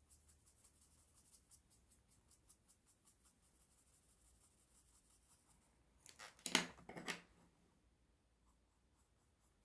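Drawing strokes: a drawing tool scratching across a surface in quick, short strokes, several a second. About six seconds in comes a brief, louder burst of rustling and knocking, like the tool or paper being handled, and then only faint scratching.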